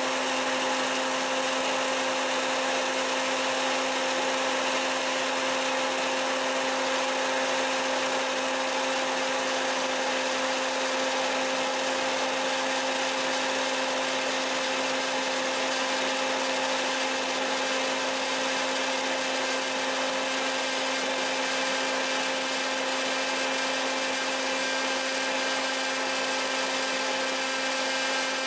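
Hot-air popcorn maker running loud: a steady electric fan-motor hum under a rush of hot air as the kernels swirl in the chamber. No kernels are popping yet.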